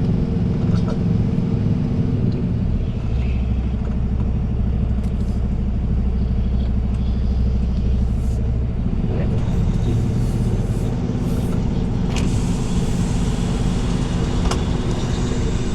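Semi-truck's diesel engine pulling a heavy oversize load, heard from inside the cab: a steady engine drone with a deep low tone that is strongest for several seconds in the first half.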